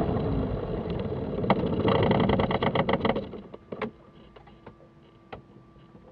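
Cessna 172 engine idling, then running in uneven pulses and stopping about three seconds in as it is shut down. Afterwards a few sharp clicks and a faint steady hum remain.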